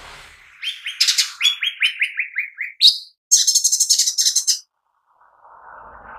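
Lesser green leafbird (cucak ijo mini) singing. It gives a run of quick chirps stepping down in pitch, then a sharp upward note and a fast high trill. A soft hiss comes before and after the song.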